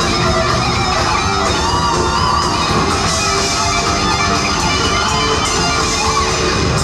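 Hard rock band playing live: electric guitar and bass over drums, with wavering, bent lead notes about one and a half to two and a half seconds in.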